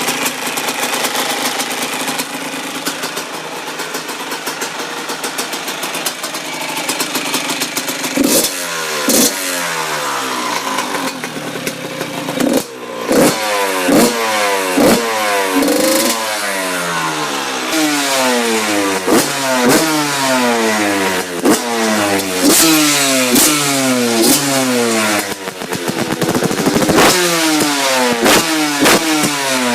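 Yamaha YZ85 two-stroke dirt bike engine running. It holds a fairly steady idle at first, then from about eight seconds in it is revved again and again in quick throttle blips, the pitch rising and falling with each one.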